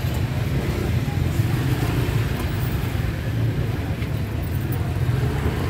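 Steady low rumble of motor traffic, with no distinct events standing out.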